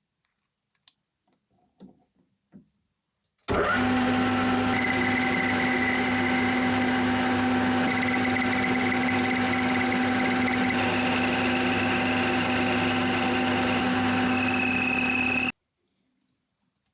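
Electric workshop machine motor running steadily for about twelve seconds, starting abruptly after a few faint clicks, with a steady hum and a high whine that steps up in pitch near the end before it breaks off suddenly.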